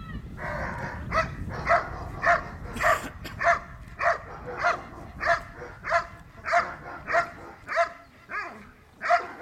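Dog barking in a steady, even rhythm, about one and a half barks a second.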